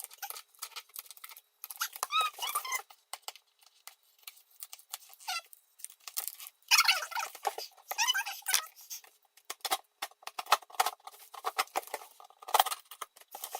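Packing tape being peeled slowly off a cardboard box, played back fast-forwarded: dense crackling and tearing with short, high-pitched squeaks.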